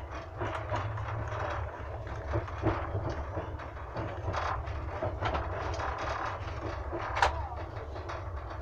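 Passenger train carriage running on the rails, heard from inside the car: a steady low rumble with irregular clicks and knocks from the running gear, one sharper knock about seven seconds in.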